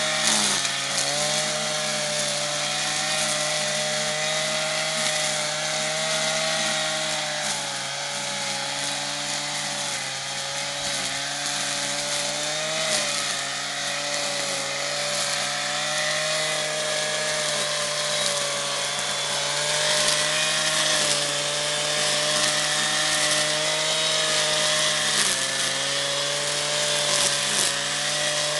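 Stihl petrol strimmer with a nylon line head running at high revs while cutting weeds and undergrowth. The engine note is steady, dipping slightly and recovering a few times as the line bites into the growth.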